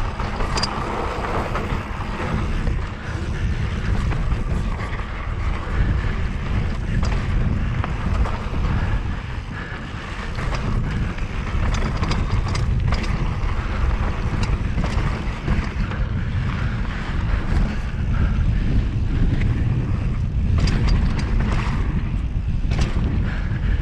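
A mountain bike being ridden along a dirt trail, heard from a camera on the bike or rider: wind buffeting the microphone over a steady rumble of tyres, with scattered sharp clacks and knocks as the bike rattles over bumps.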